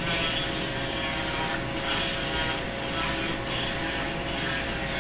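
A ruby carving bur in a Foredom flex-shaft handpiece grinding wood, with a steady motor whine and a vacuum drawing the dust off through a shield at the bur tip. The grinding noise rises and falls with each pass over the wood.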